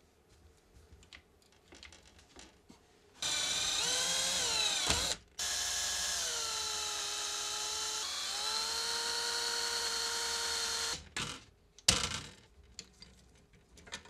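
Cordless drill boring a hole through a steel frame tube. Its motor whine starts about three seconds in, wavers and falls in pitch, and stops for a moment. It then runs steadily for about six seconds before stopping. Light clicks of clamps being handled come before it, and one sharp click comes after.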